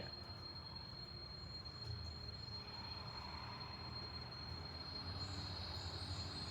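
Faint room tone: a low, steady hiss with a thin, constant high-pitched whine.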